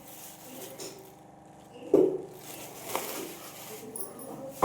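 Hard kitchen items knocking and clinking as they are handled: a sharp knock with a short ring about halfway through, a fainter knock a second later, and another sharp knock at the very end.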